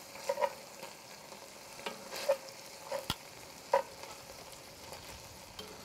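Metal tongs stirring sausage and chopped peppers in a cast iron Dutch oven, with scattered sharp clinks of metal on iron over a faint sizzle.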